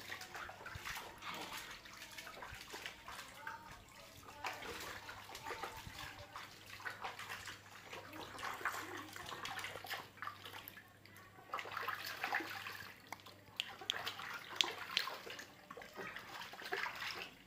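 Water splashing and sloshing in a plastic baby bath basin as a baby is washed by hand, in many small irregular splashes.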